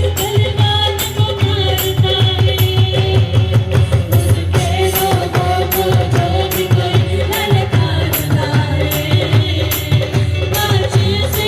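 Live worship music: a choir singing a devotional song over a bass-heavy band, with a high jingling percussion stroke about twice a second.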